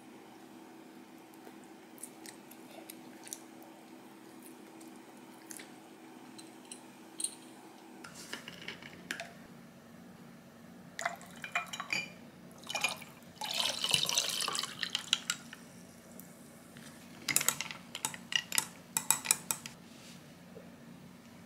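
Lemon highball poured into a glass mug of ice, with ice cubes clinking against the glass. After a quiet start with faint scattered clicks, the clinks begin about a third of the way in, and a steady pour comes about two-thirds of the way in. A quick run of clinks follows near the end.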